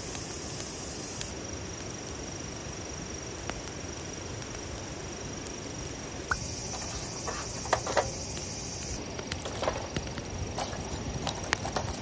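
Wood fire crackling in a stainless-steel brazier, with scattered sharp pops that come thicker from about six seconds in. A steady high insect hum runs underneath.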